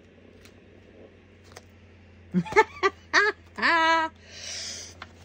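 Wordless voice sounds: about two seconds in, a quick run of short pitched syllables ending in a held note, then a breathy hiss, over a low steady hum.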